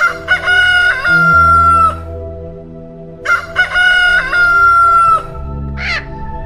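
Rooster crowing twice, each crow a few broken notes ending in one long held note. Shorter, sharper calls start near the end, over soft background music.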